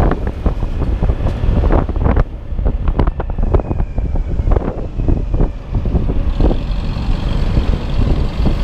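Wind buffeting the microphone on a moving motor scooter, a loud irregular rumble over the scooter's running engine and road noise. A faint high whine joins about two-thirds of the way through.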